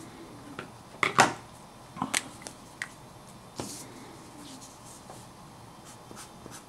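A pen being picked up and handled over paper sheets on a wooden table: a few sharp clicks and taps, the loudest about a second in and another pair about two seconds in, then faint rustling as the pen is brought to the page.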